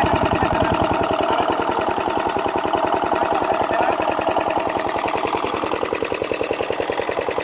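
Single-cylinder diesel engine driving an irrigation water pump, running at a steady speed with an even, rapid chugging beat while it pumps water out of a pond.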